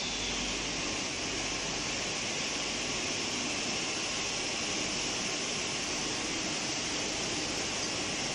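PET sheet extrusion line running: steady machinery noise, an even, unbroken hiss with no distinct knocks or changes.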